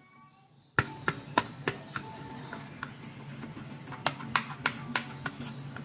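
Small hard plastic toy pieces clicking and tapping as they are handled, in sharp irregular clicks over a low steady hum. The clicks begin abruptly about a second in.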